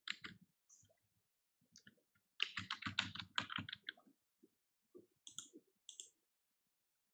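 Computer keyboard keystrokes as a password is typed: a few taps at the start, a fast run of keystrokes from about two and a half to four seconds in, then a few separate clicks near the end.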